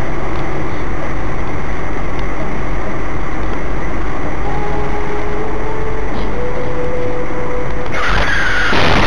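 Steady road, wind and engine noise of a car driving at speed, heard from inside the car through a dashcam. Near the end the noise turns suddenly harsher and louder as the car closes on another car pulling out ahead: the start of a collision.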